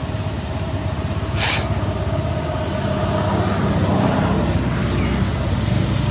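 A steady low engine rumble with a regular pulse, carrying a faint steady hum. About a second and a half in, a brief loud hiss stands out above it.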